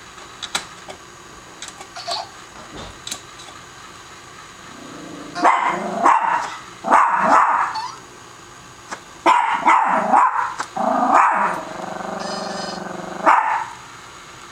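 Small Shih Tzu–Maltese mix dog barking in a run of short bouts at a toy, starting about five seconds in after a few light clicks and taps.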